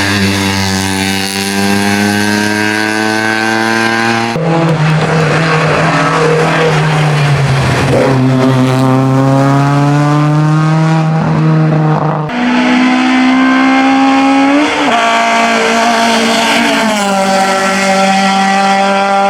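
Race car engines accelerating hard up a hillclimb, the pitch climbing through each gear and dropping at the shifts. The sound changes abruptly twice, from one car to the next.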